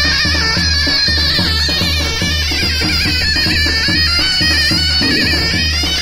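Turkish folk dance music, loud: a shrill, wavering reed-like melody over a heavy, steady drum beat.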